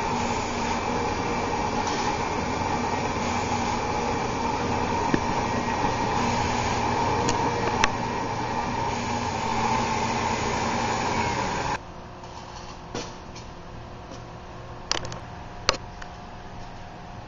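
Dahlgren Wizzard engraving machine, retrofitted with a Quality One Q3D CNC kit, running an engraving cut: a steady mechanical hum with a constant whine. It stops suddenly about twelve seconds in, leaving a lower hum and a few light clicks.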